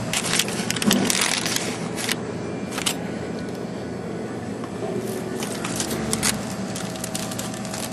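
Steady room noise with a faint hum, broken by scattered crackles and clicks from people eating burritos at a table, several of them bunched about a second in and again around five to six seconds in.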